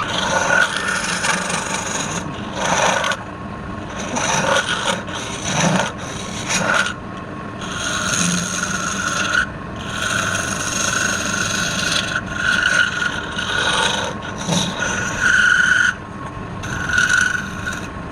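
A tool cutting into spinning wood on a lathe in repeated passes of a second or two: a rasping sound with a whine that comes and goes with each cut.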